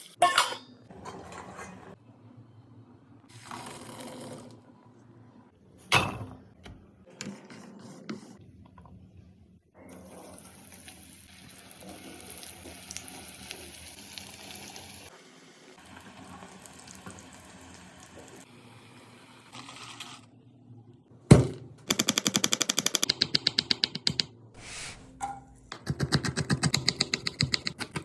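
A run of cooking sounds from preparing chana masala: utensils knocking and clinking against a bowl or pan, and a steady hiss in the middle. A sharp knock comes about three-quarters through, followed by fast repeated strokes.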